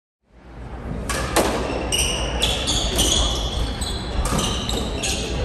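Doubles squash rally: a squash ball cracking off racquets and the court walls at irregular intervals, with court shoes squeaking on the hardwood floor. The sound fades in from silence just after the start.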